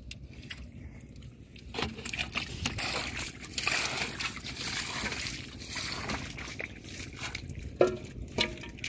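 Hands sloshing and splashing through shallow muddy pond water while groping for fish, with irregular trickles and a few sharp splashes near the end.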